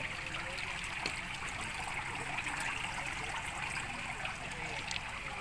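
Water flowing and trickling steadily through tiered tubifex-worm culture tanks.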